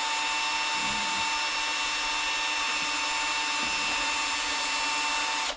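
Drill running steadily at a slow, turned-down speed, spinning a three-stone hone inside a 1940 Packard front brake wheel cylinder bore; it stops suddenly near the end.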